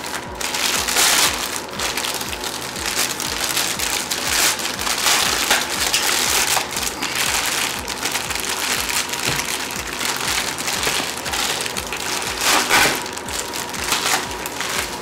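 Plastic courier mailer bag being crinkled and pulled open by hand: continuous crackling and rustling of thin plastic, with louder rustles about a second in and near the end.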